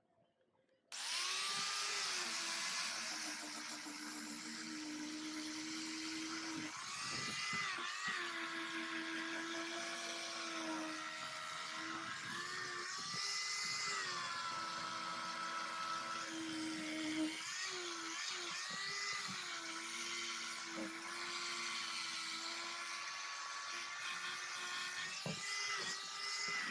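Small high-speed electric power tool starting up about a second in and running steadily, its pitch dipping and recovering several times as it is pressed against the work.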